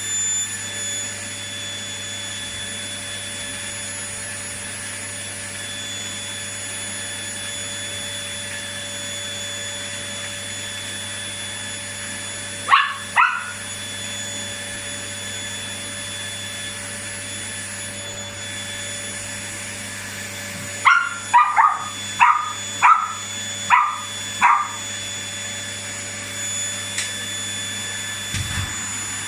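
Vacuum cleaner running steadily with a high whine, while a small dog barks excitedly: two barks about halfway through, then a quick run of about six barks later on.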